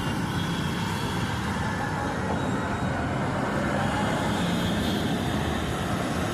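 Steady road traffic noise, an even rumble and hiss with no single vehicle standing out.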